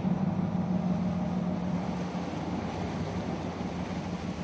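A car ferry's engine running with a steady low drone over an even hiss.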